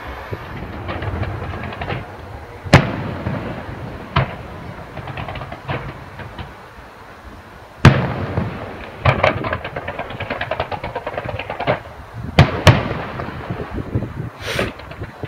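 Fireworks display: sharp bangs of aerial shells bursting, the loudest about three and eight seconds in and a pair close together near the end, with runs of fast crackling between them.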